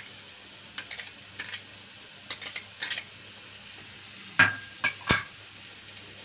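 Metal spoon clinking and scraping against a frying pan while tomato paste is stirred into frying onions and minced meat, over a faint sizzle. Light clicks come every so often, and the loudest knocks, one of them briefly ringing, come about four and a half to five seconds in.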